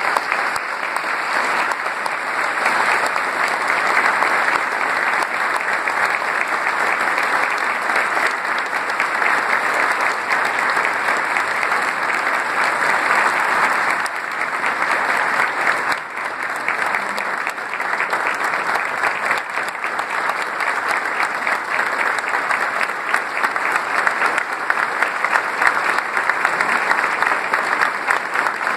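A large audience applauding steadily for about half a minute, a long ovation of many hands clapping.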